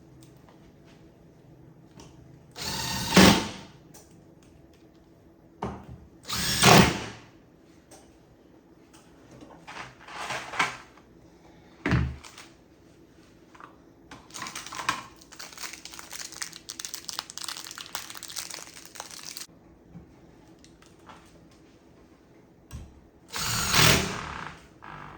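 Power drill driving screws into a door hinge in short bursts of about a second, four times, with a sharp knock between them and a longer stretch of clicking and rattling in the middle.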